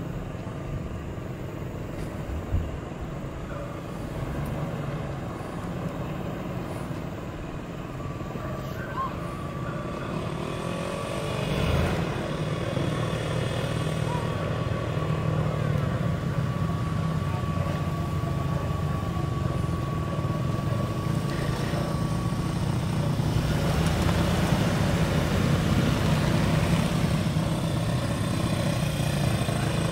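An SUV drives past close by about twelve seconds in, its engine and tyres swelling and then passing on. Steady engine noise carries on afterwards and grows a little louder near the end.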